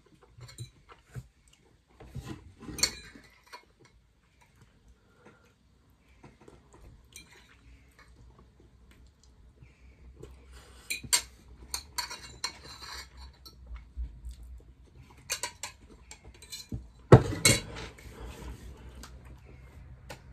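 Cutlery clinking and scraping against a plate during eating, in scattered bursts of sharp clicks. The loudest burst comes about seventeen seconds in.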